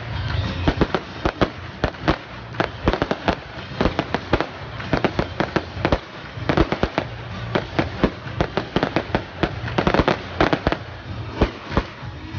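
Fireworks display: aerial shells bursting in rapid, uneven succession, with sharp bangs and crackling over a constant low rumble.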